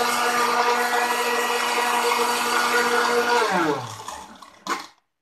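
Khind electric blender running steadily, churning a watery spice paste, then switched off about three and a half seconds in, its motor falling in pitch as it winds down. A single short knock follows near the end.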